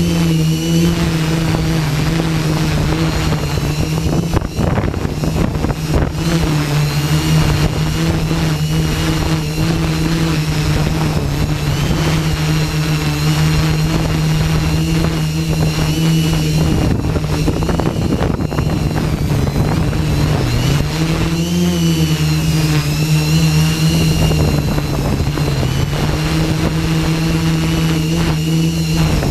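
Hexacopter's electric motors and propellers droning steadily, the pitch wavering slightly now and then as the motors adjust against the high wind. Wind rumbles underneath.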